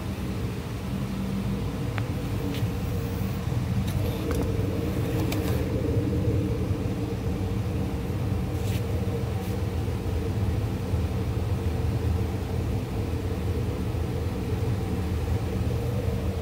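2010 Ford Explorer's 4.0-litre V6 idling steadily, heard right at the open tailpipe with the extraction hose held off; the exhaust note grows a little louder about four seconds in.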